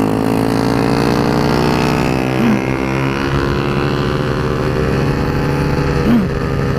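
Big-bore Yamaha Mio scooter engine (230 cc, four-valve) running hard on track, its pitch climbing gently as it pulls out of a corner and then holding steady at high revs.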